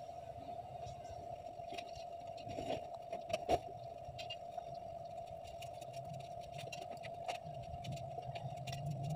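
Hands peeling boiled pili fruit make scattered light clicks and taps against plastic plates and a bowl; the sharpest click comes about three and a half seconds in. A steady background hum and a low rumble run underneath.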